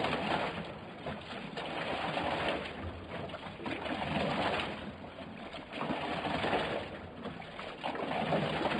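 Cloudy wort running from a lauter tun's tap and splashing into the foaming wort in the collecting trough, gurgling in swells that come and go about every two seconds as the first cloudy wort is drawn off in surges.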